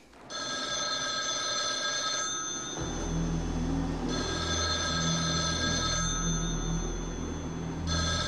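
Payphone ringing in the usual cadence, about two seconds on and two seconds off: three rings, the third starting near the end. A steady low drone comes in underneath about three seconds in.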